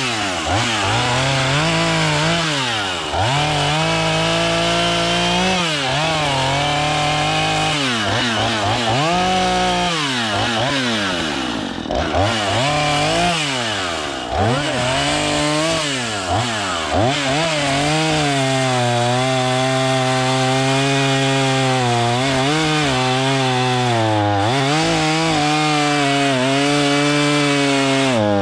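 Chainsaw cutting wood, its engine pitch repeatedly sagging and climbing back as the chain bites and frees. In the last third it holds a steadier pitch through the cut.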